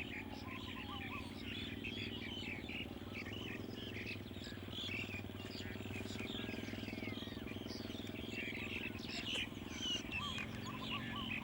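Many birds chirping busily, with short quick calls throughout, over a steady low hum.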